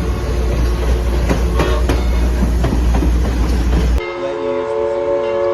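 Southern Railway 4501's three-chime Princeton steam whistle sounding a long steady chord over the rumble and rail clicks of the moving train. About four seconds in, the sound cuts abruptly to another held blast of the chime whistle with little rumble under it.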